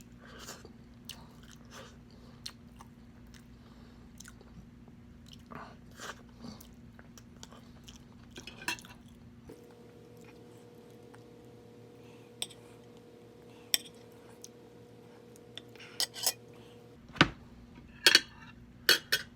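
Close-up eating sounds of someone chewing spicy pork adobo: scattered wet chews and lip smacks over a faint steady hum, the smacks sharper and louder in the last few seconds.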